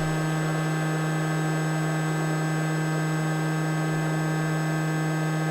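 Steady electrical hum: a strong constant low tone with a stack of fainter steady tones above it, unchanging throughout.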